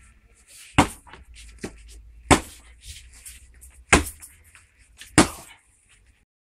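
Four sharp knocks about a second and a half apart, with lighter clicks and rustling between them.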